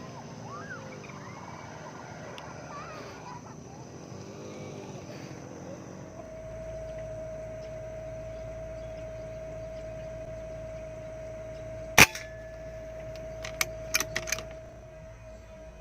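Air rifle shot: one sharp crack about twelve seconds in, followed over the next two seconds by several lighter clicks. A faint steady tone runs through the second half.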